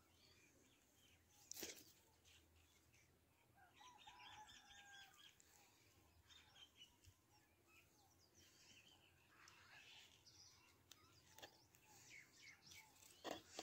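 Near silence: faint outdoor ambience with scattered faint bird chirps, and a single sharp click about a second and a half in.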